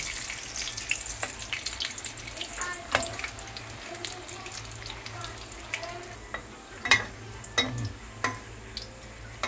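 Tuna and potato kebab patties sizzling as they shallow-fry in hot oil in a nonstick pan, with a spatula clicking and scraping against the pan as they are moved. The sharpest clicks come about three and seven seconds in.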